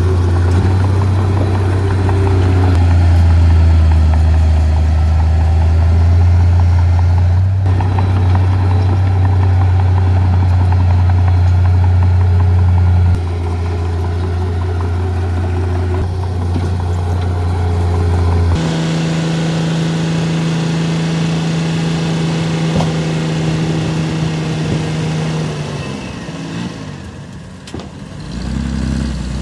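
Heavy earthmoving machinery's diesel engines running steadily with a deep hum. About two-thirds of the way through, the sound switches abruptly to a different, higher engine note, which dies down near the end.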